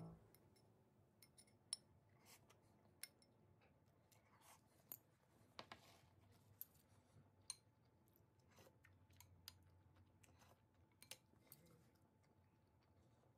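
Near silence, broken by faint, irregular clicks of metal chopsticks and a spoon tapping and scraping against ceramic bowls.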